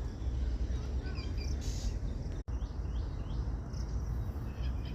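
Faint short bird chirps, including a run of four quick falling notes about halfway through, over a steady low rumble on the microphone, which is the loudest sound.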